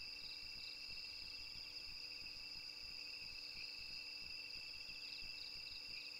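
Night insect chorus: steady high-pitched trilling of crickets, with a few short chirps near the start and again near the end.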